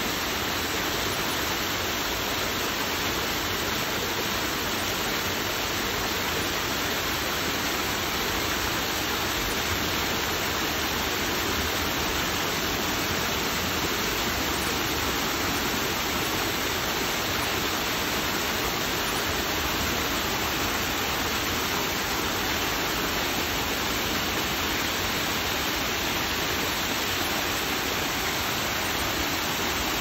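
Small garden waterfall cascading over rocks: water splashing and rushing in a steady, unbroken roar.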